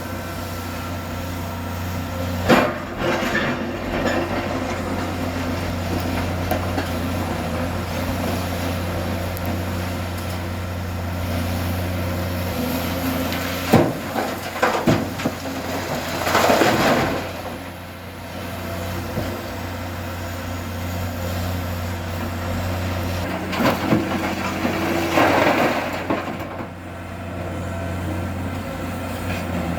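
Excavator's diesel engine running steadily, with scraping and clanking from the working machine breaking in a few times: a short knock near the start, a louder burst of scraping about halfway through, and another near the end.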